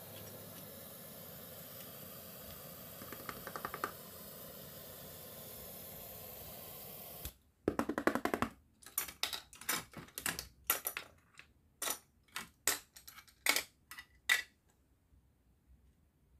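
Toy plastic food skewers and a plastic tray clicking and clacking as they are handled and set down. A few soft clicks sound over a steady hiss. The hiss then drops away, and a run of about fifteen sharp, irregular clacks follows.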